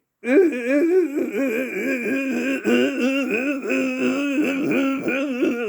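Improvised imitation of a washing machine running: a continuous, wavering, warbling wail, one low tone held fairly steady under higher tones that wobble up and down.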